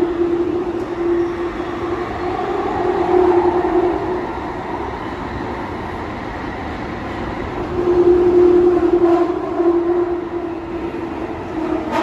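London Underground Jubilee line train running through a tunnel, heard from inside the carriage: a steady drone of the traction motors over wheel and tunnel rumble, swelling louder twice.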